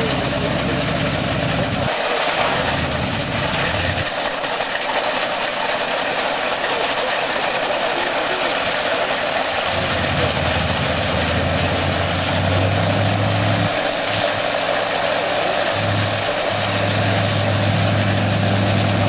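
Piston engines of a large twin-engined biplane idling on the ground: a steady engine noise, with a low hum that fades for several seconds and comes back strongly from about ten seconds in.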